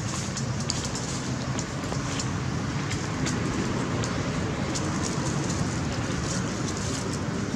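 Steady low background rumble of outdoor ambience, with scattered faint clicks and rustles.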